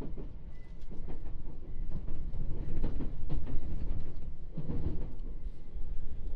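JR East 701 series electric train running, heard from inside the carriage: the wheels rumble on the rails, with irregular clicks and knocks over the track. A heavier knocking rumble comes about five seconds in.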